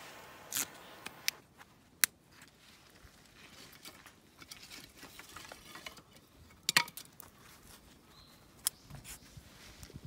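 Freshly lit kindling fire catching in a steel fire pit: a few sharp crackles and snaps from the split wood, loudest about two seconds in and again near seven seconds, over a faint hiss that fades in the first moment.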